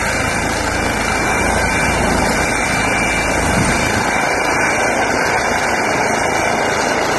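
Airbus (Eurocopter) EC135 T2 helicopter running close by: its twin turbine engines and rotors give a loud, steady rushing noise with a thin, steady turbine whine on top.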